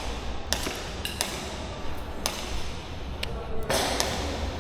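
Scattered single airsoft gun shots, sharp pops about a second apart, with a hiss of noise coming in near the end.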